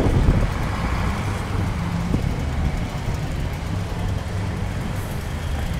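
Steady low engine rumble over a general outdoor hum, with a brief knock about two seconds in.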